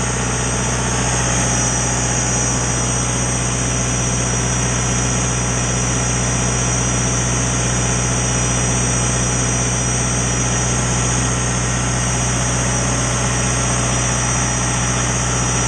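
John Deere 4045 turbocharged four-cylinder diesel engine of a standby generator set running steadily at constant speed under light load, with a steady high-pitched whine above the engine's low note.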